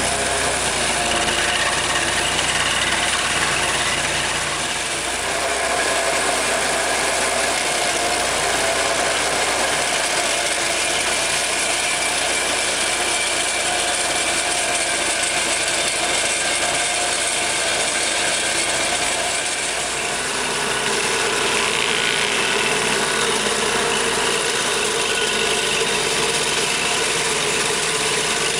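Vermeer stump grinder running steadily, its engine driving the spinning cutter wheel as it chews into a tree stump and the ground around it. The tone of the machine changes about twenty seconds in.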